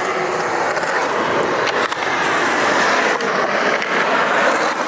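Skateboard wheels rolling fast over concrete: a steady, loud rolling noise with a few light clicks along the way.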